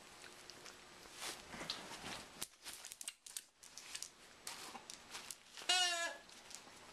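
A red plush dog toy being shaken and tugged in a dog's play, with rustling and light clicks of paws on a tile floor; near the end the toy's noisemaker gives one brief warbling squeal.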